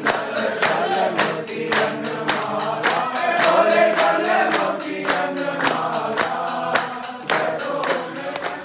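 Group of voices singing a Hindu devotional aarti, with a steady beat of sharp percussion strikes about three to four a second.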